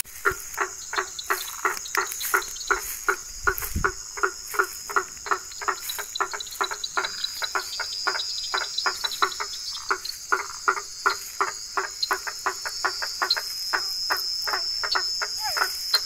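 A chorus of frogs calling: a fast, even run of short repeated notes, about three or four a second, over a steady high-pitched trill.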